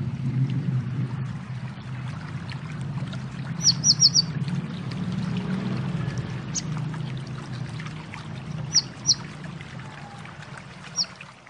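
Short, sharp high chirps of a konin bird: a quick run of four about four seconds in, then single and paired chirps spaced a few seconds apart. They sound over a steady low rushing noise that fades toward the end.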